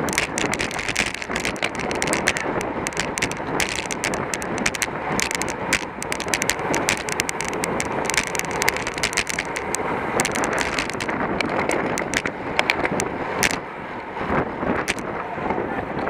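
Road bicycle ridden at racing speed: wind rushing over the microphone, with frequent small rattles and clicks from the bike and the road surface.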